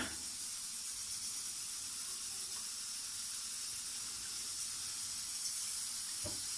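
A steady, even hiss, with one sharp knock right at the start.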